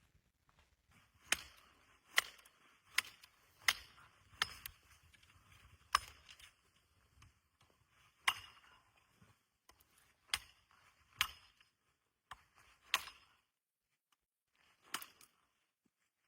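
Wood being chopped with a blade: about a dozen sharp, separate strikes at an uneven pace, roughly one a second, some with a short ring after the hit.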